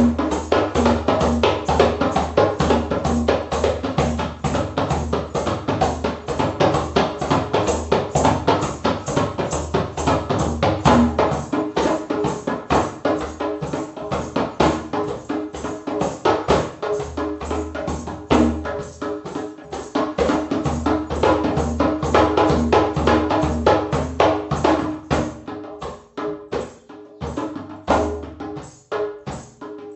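Background music with a fast, steady percussion beat over sustained tones and a low bass line, the bass dropping out for a few seconds near the middle.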